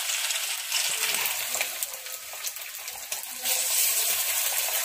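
Masala-coated fish pieces shallow-frying in very hot oil in a pan: a steady sizzle full of small crackling pops, which swells a little about three and a half seconds in.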